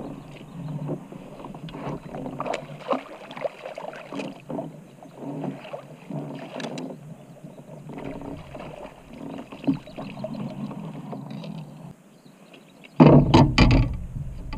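A hooked bass splashing at the surface and fishing tackle rattling on a kayak while the fish is fought in. About 13 s in there is a loud burst of splashing and knocking as the fish is netted and brought aboard.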